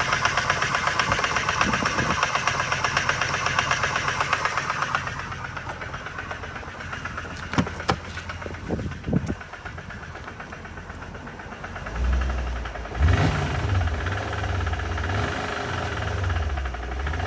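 Mercedes-Benz W221 engine running with a fast, even ticking knock, the abnormal engine noise under investigation. The ticking falls away about five seconds in, a few sharp clicks follow, and about twelve seconds in a deeper, lower engine sound comes up.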